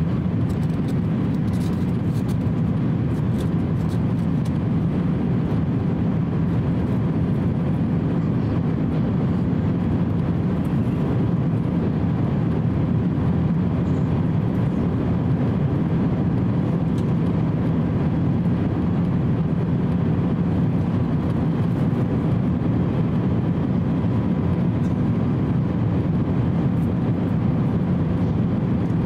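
Steady cabin noise of an Airbus A350-900 at cruise altitude: the low, even rush of airflow and engines, with a faint steady hum. A few faint clicks come in the first few seconds.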